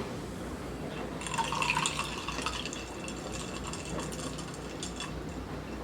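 Lemon-lime soda poured from a can into a glass with ice. The splashing starts about a second in, is strongest for about two seconds, then thins out into a few light clinks.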